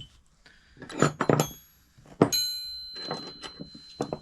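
Metal hand tools being handled and set down: scattered clinks, then one hard clank about two seconds in that leaves a ringing metallic tone for about two seconds, then more light clicks.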